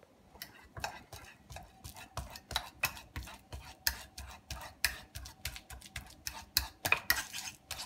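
Metal fork mashing banana on a ceramic plate: an irregular run of quick clicks and taps of the tines against the plate, a few a second.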